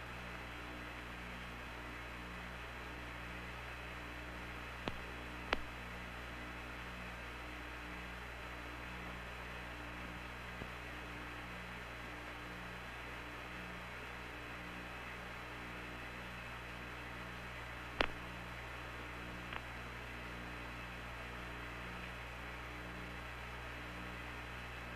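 Steady hum and hiss of an open air-to-ground radio channel, with a faint low tone pulsing on and off. A few short clicks sound about five seconds in and again around eighteen and twenty seconds, the one near eighteen the loudest.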